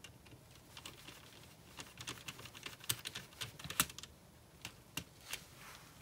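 Faint, irregular small clicks and ticks of a precision screwdriver turning small screws into a plastic model part, with fingers handling the plastic pieces.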